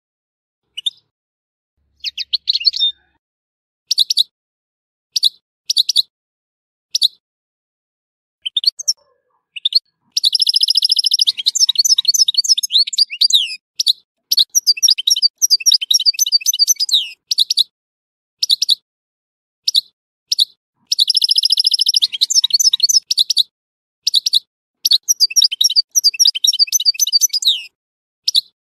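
European goldfinch singing. It gives short, separate chirps at first, then from about ten seconds in delivers long phrases of rapid twittering with buzzy trills, broken by brief pauses.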